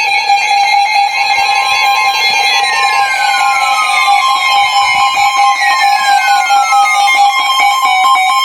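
Weather radio alert tones for a severe thunderstorm warning: a steady, fluttering alarm tone, joined about four seconds in by a second steady tone, with a falling sweep repeating about every three seconds.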